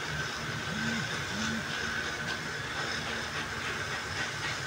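Steady mechanical hiss and hum of workshop machinery running, with a few faint crackles in the second half while molten metal pours into iron molds.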